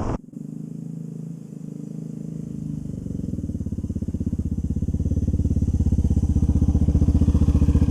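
Dual-sport motorcycle engine running at a low, steady speed with a rapid even pulse, growing louder over several seconds.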